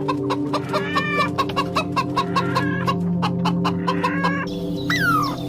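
A quick run of short, clucking-like animal calls over steady background music. About four and a half seconds in it changes to a different call that falls in pitch, repeated about once a second.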